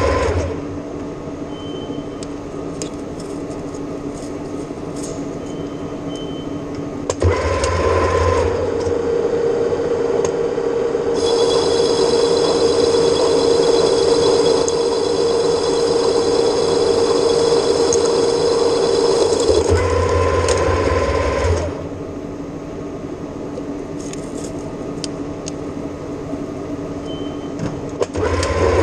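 Metal lathe running steadily while turning stainless steel. About seven seconds in the sound grows louder for some fifteen seconds, with a high steady whine through the middle of that stretch, then settles back to the quieter running sound.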